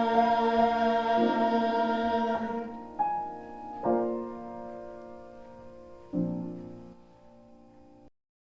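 Closing music: a held chord with voices, then three struck piano chords, each dying away. It cuts to silence just before the end.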